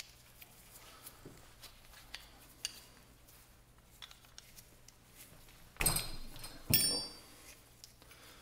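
Small metal clicks and taps as brass lantern valve parts and a wrench are handled, then two sharp metallic clinks about six and seven seconds in, each left ringing briefly.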